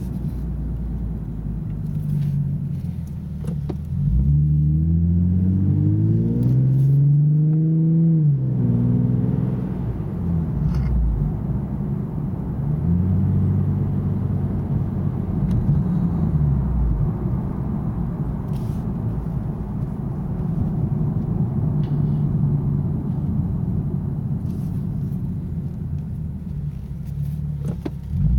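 2009 Nissan 370Z's 3.7-litre V6 heard from inside the cabin, breathing through a Fast Intentions exhaust with carbon-fibre resonators and non-resonated high-flow cats. The engine note rises under acceleration from about four seconds in, drops sharply at about eight seconds with a gear change, then settles into a steady low-rev cruise with small swells. It climbs again right at the end.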